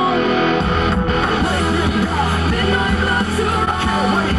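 Heavy rock song with electric guitar; after a softer opening, the full band comes in heavily about half a second in.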